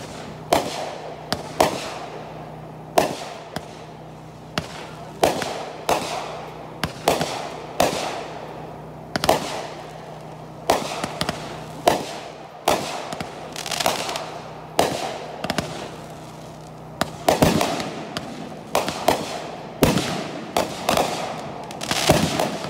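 Aerial fireworks launching and bursting in quick succession: sharp bangs about one a second, each with an echoing tail, some in quick pairs.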